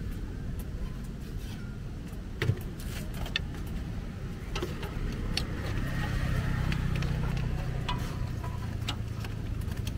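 Scattered clicks and scrapes of a metal scraper on a hot griddle making Khanom Bueng crepes, with one sharper knock about two and a half seconds in. Under them a vehicle engine hums low, swelling and holding steady from about halfway through.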